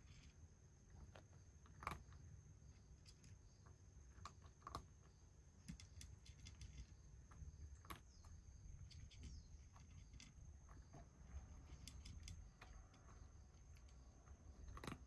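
Quiet, sparse little clicks and ticks of a cat licking and eating wet food from a shallow dish, over near-silent room tone with a faint steady high whine.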